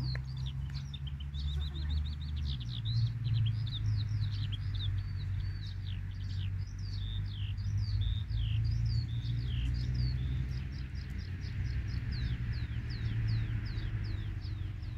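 Small birds chirping in quick, repeated downward-sliding notes, over a steady low rumble that is the loudest part of the sound.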